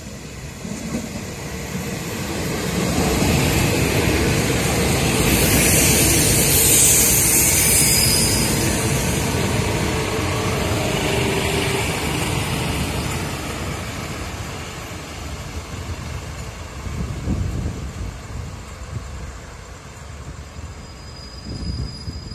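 Daewoo-built diesel railcar express train running through the station at speed, close by. The sound builds to a peak about six to eight seconds in, with a rushing hiss as the cars go past, then fades as the train moves away.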